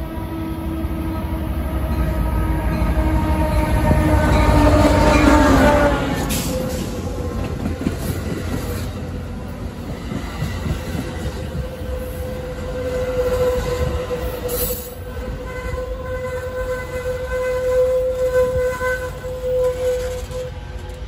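A diesel passenger train led by an EMD F59PHI locomotive passes close by. A steady horn tone, loudest as the locomotive goes by, drops in pitch about five seconds in, over the rumble of engine and wheels. Then a long steady squeal from the wheels rings out as the passenger cars roll past.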